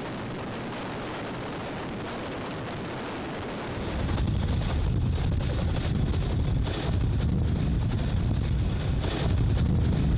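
Boeing CH-47 Chinook hovering overhead: deep rotor noise buffeting the microphone, with a steady high turbine whine. It comes in much louder about four seconds in, after a few seconds of steadier, quieter noise.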